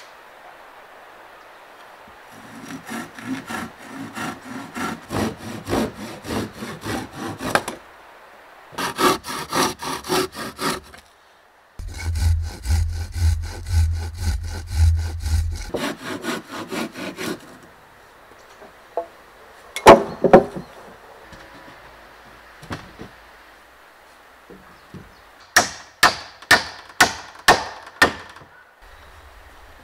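Hand saw cutting a wooden board in several bouts of quick back-and-forth strokes. Later come a couple of loud knocks, then a quick run of about eight hammer blows near the end, driving nails into the frame.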